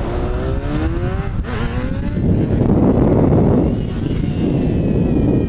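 Yamaha FZ6 600 cc inline-four engine accelerating hard. Its pitch climbs, dips briefly about a second and a half in, then climbs again: the throttle is chopped and snapped back open to pop the front wheel up. From about two seconds in, a loud rush of wind and engine noise takes over.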